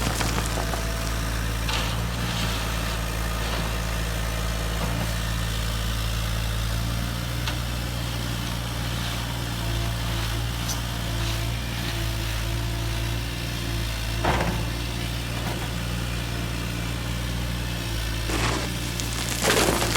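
Radio-controlled construction models running: a steady low hum from the RC excavator's and dump truck's motors, with a few short scrapes and clatters, the loudest near the end.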